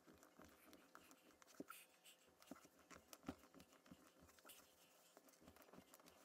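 Near silence with a few faint soft taps: socked feet rising onto demi-pointe and setting down on a parquet floor.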